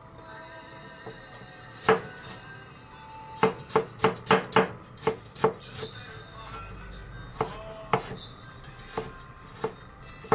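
Chef's knife chopping on a cutting board, mincing ginger. A single stroke comes first, then a quick run of about eight strikes at roughly four a second, then slower, scattered strikes.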